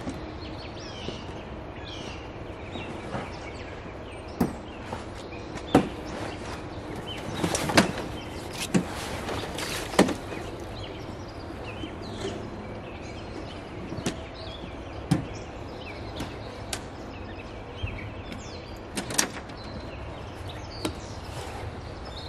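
Irregular knocks and clunks, about a dozen of them, as a canvas cover is pulled off a small aluminum fishing boat and gear in the metal hull is shifted and bumped. Faint bird chirps sound behind.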